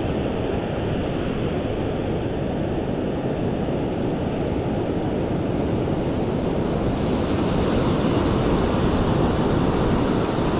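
Ocean surf washing on the beach, a steady rushing noise that swells a little about seven seconds in, with wind on the microphone.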